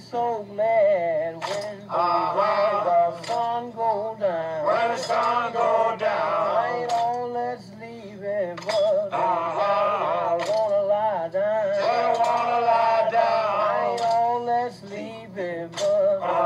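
A field recording of a plantation work song sung by male voices, with a sharp strike about every two seconds keeping time.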